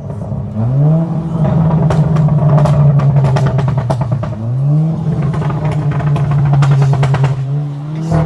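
Volkswagen Golf R's turbocharged 2.0-litre four-cylinder revved twice, each time rising quickly and then held steady at high revs, with a rapid crackling over the held note.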